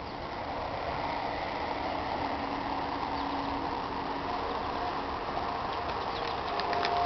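2004 Sterling LT9500 cement mixer truck idling with a steady hum, with a few light clicks near the end.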